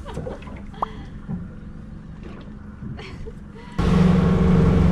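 A low background with a few faint clicks, then about four seconds in a sudden switch to a fishing boat under way: its engine runs with a loud steady drone over the rush of water from the wake.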